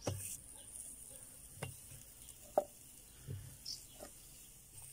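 Whole peeled onions and carrot chunks set down one at a time in a hot cast-iron kazan: about five light knocks as they land, over a faint sizzle as they start to fry.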